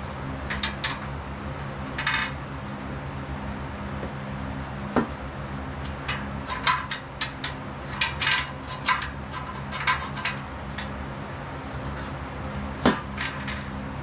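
Scattered metallic clinks and rattles of hardware and tools against the steel frame of a squat rack being bolted together, busiest in the middle, with a single sharp clank near the end.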